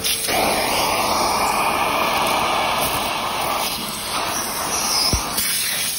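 Vacuum cleaner running, air rushing steadily through its hose and nozzle, easing a little past the middle, with a short knock near the end. It is not pulling well, which the user takes for a clog.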